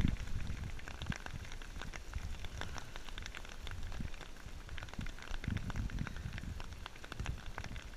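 Hail mixed with rain pelting down: a steady hiss filled with dense, irregular sharp ticks as hailstones hit the deck and nearby surfaces. A louder low bump comes right at the start.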